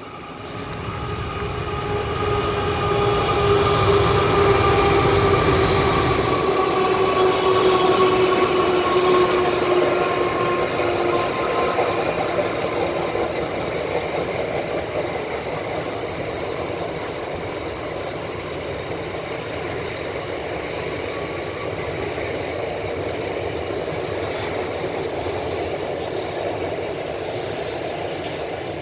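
A train passing close by: it builds up quickly, its tones sliding slowly down in pitch as the front goes past over the first ten seconds or so, with a heavy low rumble that drops away after about six seconds. The rest of the train then keeps rolling by with a steady rumble of wheels on the rails.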